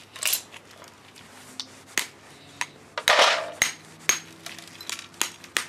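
Small hammer tapping a seashell mould to break it off the lead fishing weight cast inside it. Irregular sharp knocks and clinks, loudest in a quick cluster about three seconds in.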